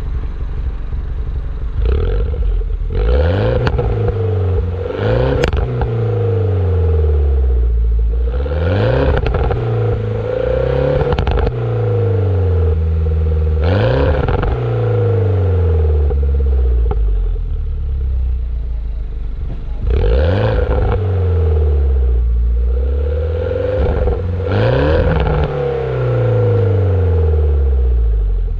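2007 Mini Cooper S (R56) 1.6-litre turbocharged four-cylinder breathing through a Remus racing exhaust, revved repeatedly while standing still. Each blip rises sharply, and the revs then fall slowly back to idle.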